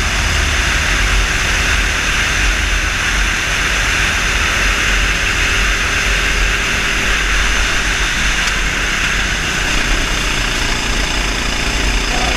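A 390cc single-cylinder four-stroke kart engine running steadily at track speed, heard from the kart itself.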